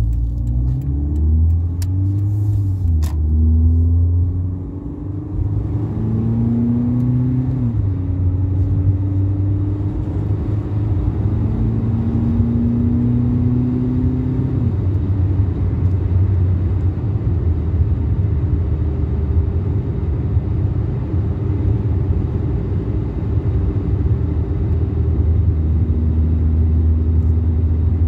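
2010 Toyota Yaris 1.5-litre four-cylinder with a home-made cold air intake, heard from inside the cabin while accelerating. The engine note climbs and drops back at each of several upshifts over the first fifteen seconds, then settles into a steady cruising drone.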